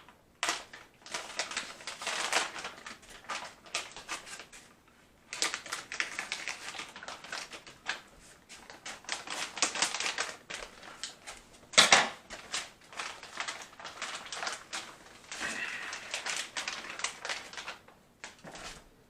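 Knife cutting, in many quick clicking and scraping strokes that come in bunches with short pauses. There is one louder knock about twelve seconds in.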